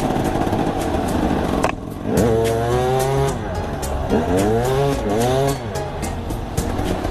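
Trail motorcycle engine revving, its pitch swelling up and falling back in two long revs after a brief drop about a second and a half in.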